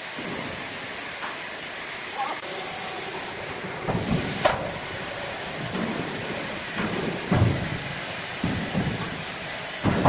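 Large log being hoisted by crane off a log trailer: a steady hiss-like noise, with several dull knocks and thuds from about four seconds in.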